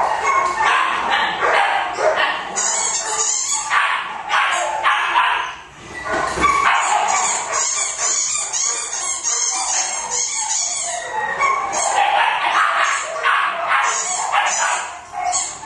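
A dog barking over and over in high-pitched yaps, with a brief lull about six seconds in.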